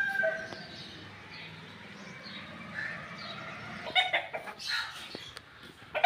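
A rooster's crow trailing off at the start, then a few faint short chicken calls around four to five seconds in, and another rooster crow beginning right at the end.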